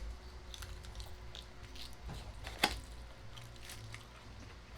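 Quiet chewing and wet mouth sounds of someone eating sauced fried chicken, with scattered small clicks and one sharp crunch or click a little under three seconds in, over a low steady hum.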